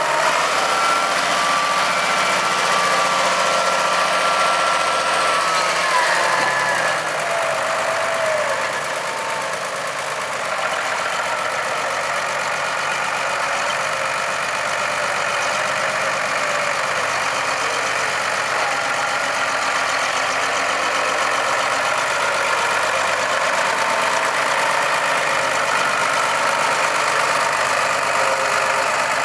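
Diesel tractor engine running steadily as it works a front loader. Its revs drop about six to seven seconds in, then settle and stay steady.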